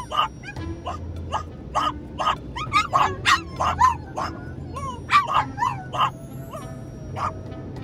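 Two French bulldogs barking and yipping in quick succession, with whining calls bending up and down between the barks, in an agitated tantrum inside a car's cabin. The barking stops shortly before the end.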